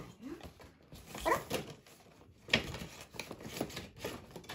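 Cardboard toy packaging being handled and its flap pried open: rustling and scraping, with one sharp tap about two and a half seconds in and a few lighter clicks after it.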